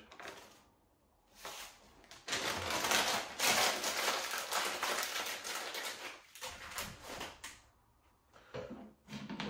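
Dry rustling and rubbing for about four seconds, handling noise as the groundbait is dealt with, followed by a few light taps and knocks on the table.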